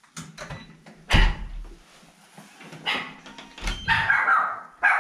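Pet toy poodle barking several short times, most in the second half, greeting someone at the front door. About a second in comes the loud clunk of the glass-panelled front door being opened.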